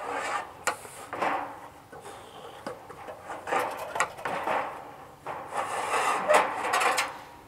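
Irregular scraping, rubbing and light knocks of extension ladders and a metal walk board being handled as workers climb and position them, with a few sharp clicks.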